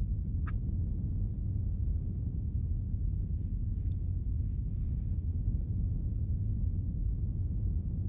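A steady low rumble with no clear pitch, with a faint short blip about half a second in.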